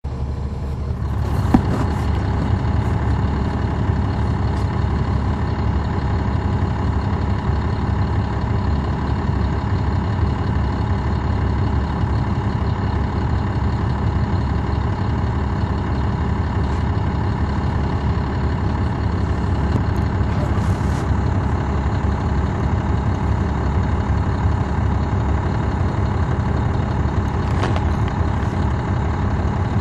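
Caterpillar C13 ACERT diesel engine of a NABI 40-SFW transit bus running steadily, heard from the rear seat inside the bus as a low, even rumble. There is a short knock about a second and a half in.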